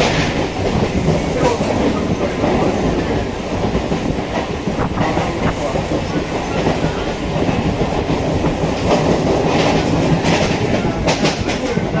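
Train running along the track, heard from a carriage window: a steady loud running noise with the clickety-clack of the wheels over rail joints, and a few sharper clicks about five seconds in and again near the end.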